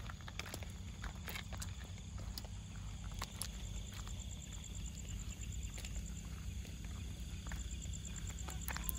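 Footsteps on pavement while walking, heard as scattered light clicks over a steady low rumble. A fast, even, high-pitched chirping from night insects starts a few seconds in, pauses, and comes back near the end.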